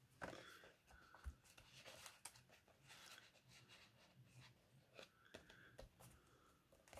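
Near silence, with faint scattered rustles and light taps of paper as a cut-out is pressed and smoothed down onto a journal page by hand.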